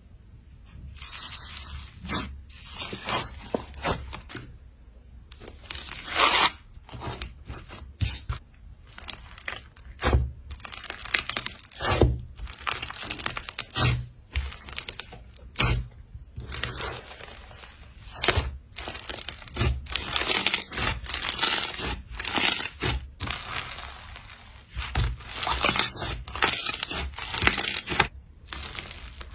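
Slime being pressed, stretched and poked by hand, giving irregular crackles and sharp pops, some of them loud, a second or two apart.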